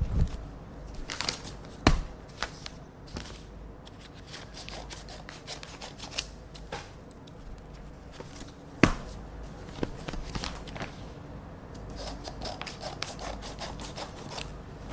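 Scissors cutting open paper envelopes, with paper handled and rustled in between. There are a few sharp clicks, near the start, about two seconds in and about nine seconds in, and a quicker run of small snips near the end.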